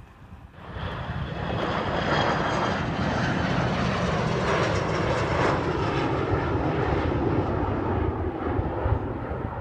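Embraer ERJ-145 regional jet's twin turbofans at climb power just after take-off: a steady jet rush with a faint high whine. It starts abruptly about half a second in and eases off a little near the end as the jet climbs away.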